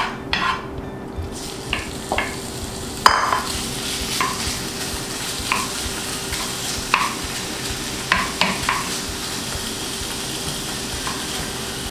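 Chicken frying in a hot oiled pan with eggplant, sizzling, while a utensil scrapes and knocks against the pan every second or so as it is stirred. The sizzle starts about a second in and grows louder at about three seconds.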